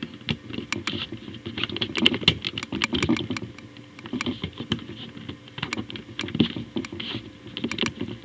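Plastic pieces of a large, stiff dodecahedron-shaped twisty puzzle clicking and clacking as it is handled and turned, in quick irregular clusters.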